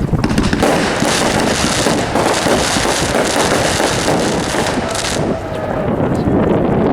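A 500-gram consumer fireworks cake firing: a loud, dense, continuous crackle and popping that is fullest until about five seconds in and then thins out.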